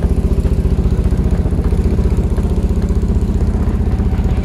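A motor running steadily with a rapid, even low throb, like an engine at idle.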